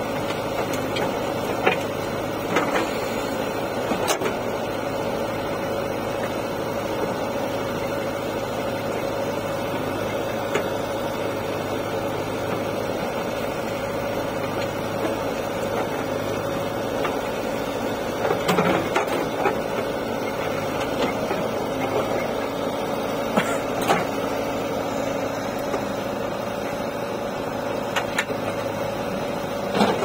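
JCB 3DX backhoe loader's diesel engine running steadily under hydraulic load while the backhoe digs and dumps soil. Scattered short knocks and clanks from the working arm and bucket, with a cluster about two-thirds of the way through.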